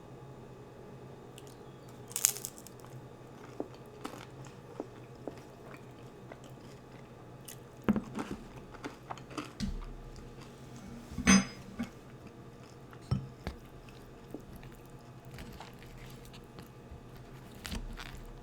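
Close-miked eating: a person biting and chewing crunchy food, with scattered sharp crunches, the loudest about two seconds in, around eight and eleven seconds, and near the end.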